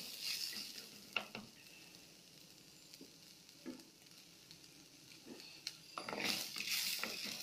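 Chopped cluster beans and brinjal sautéing in oil in a clay pot, stirred with a spatula: a soft sizzle and scraping stir at the start, a few light knocks in a quieter middle, then louder stirring from about six seconds in.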